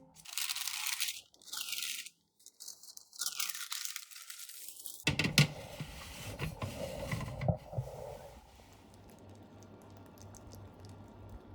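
Crinkling and tearing in three short bursts, then a longer stretch of softer rustling with a few knocks that fades out.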